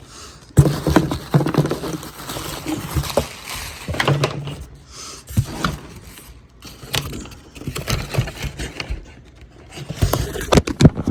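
A corded smoke alarm being handled and worked out of its packaging: scraping, rustling and a string of light knocks and clicks.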